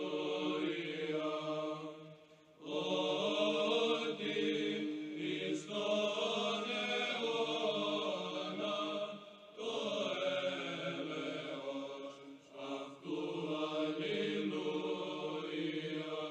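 Background music of slow sung chant: long held notes in phrases of a few seconds each, separated by short breaks.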